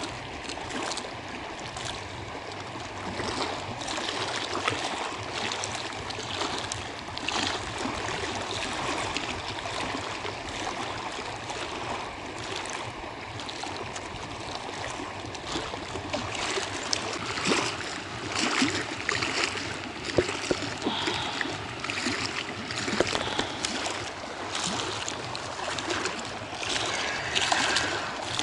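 Small waves on a choppy reservoir lapping and splashing at the bank: a steady wash with irregular small splashes, busier in the second half.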